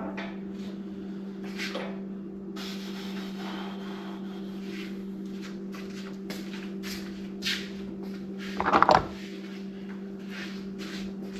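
Scattered light knocks and clinks of metal parts and tools being handled, with one louder clank about nine seconds in, over a steady low electrical hum.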